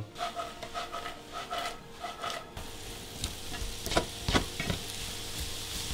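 Finely chopped celery, onion and chili sweating in olive oil and butter in a nonstick pan on low heat, with a gentle sizzle, while a spatula stirs and scrapes through them. The sizzle comes in about halfway through, with a few sharp knocks of the spatula against the pan.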